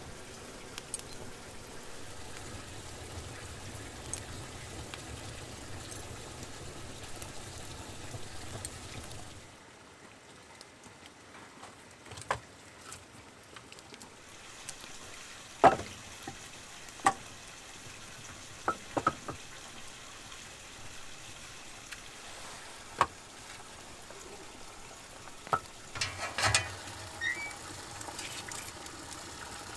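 Wood fire crackling and hissing steadily, then quieter, broken by sharp knocks of split firewood logs being handled, the loudest a little past the middle, and a quick cluster of crackles and knocks near the end.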